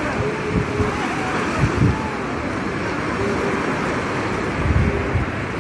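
Surf breaking and washing on the beach, with wind buffeting the microphone in irregular low rumbles, strongest a little under two seconds in and again near the end.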